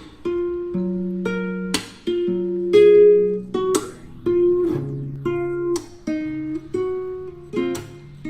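Background music: acoustic guitar strumming chords, each strum ringing on until the next.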